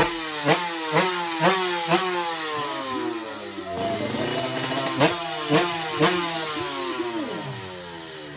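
Two-stroke drag-race motorcycle engine revved in sharp throttle blips, about two a second, each rev dropping away quickly. After five blips it runs rougher for a few seconds, then gives three more blips before falling off toward the end.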